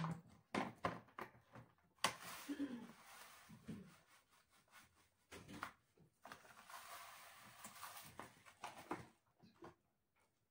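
Quiet handling of food and tableware: rustling, most likely a plastic bag, in two stretches, between scattered light clicks and knocks.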